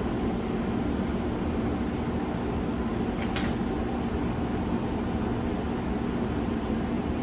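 Heater running with a steady whirring noise and a low hum. A brief rustle about three seconds in.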